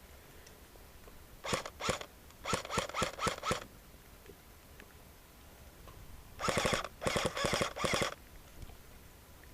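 Airsoft guns firing in short bursts: two quick bursts about a second and a half in, four more in rapid succession right after, then a longer string of bursts later on.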